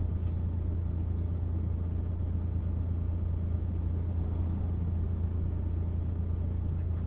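Steady low drone of a car heard from inside its cabin, engine and road noise at an even level.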